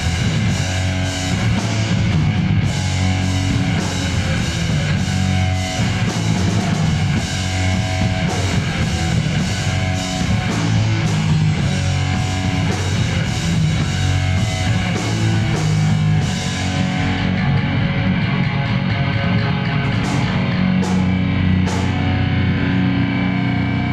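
Live rock instrumental: electric guitar played through an amplifier over a full drum kit keeping a steady beat. About seventeen seconds in the steady cymbal beat stops, leaving the guitar sounding with three sharp hits near the end.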